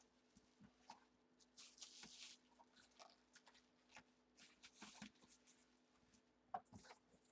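Near silence, with faint scattered rustles and light clicks of handling.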